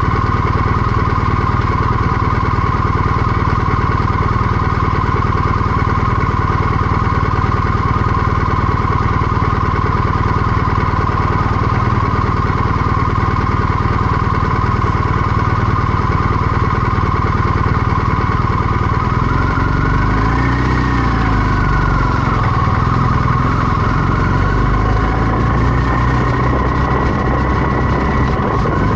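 BMW R1250GS 1254 cc boxer-twin engine running steadily while riding. About twenty seconds in its pitch swells up and falls back, then holds a higher note near the end.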